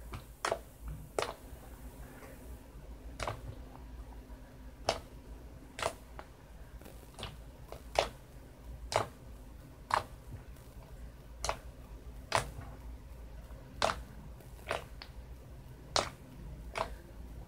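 Thick, glossy white slime pressed and folded by fingers, giving sharp clicking pops about once a second, irregularly, as trapped air pockets burst.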